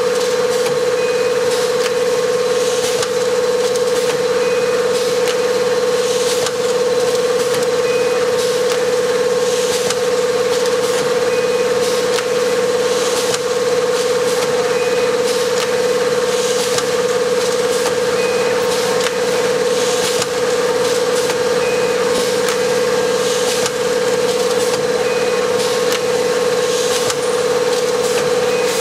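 Four-lane automatic packing machine running: a loud, steady hum throughout, with a short hiss and a faint high blip each recurring about every three and a half seconds as the machine cycles.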